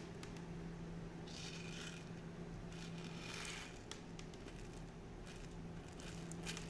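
Small steel balls shifting and rattling faintly inside a wooden clock counterweight box as it is handled, with a couple of brief rustles and a few small clicks over a steady low hum.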